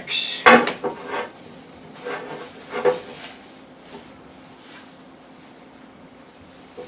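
Wooden spatula stirring and scraping moist stuffing mix in a glass bowl, with a knock about half a second in, then quieter handling as the stuffing is scooped out. A faint steady hum runs underneath.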